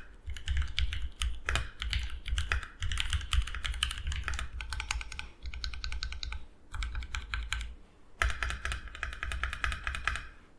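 Typing on a mechanical keyboard fitted with Gateron Oil King linear switches: fast runs of keystrokes, broken by two short pauses in the second half.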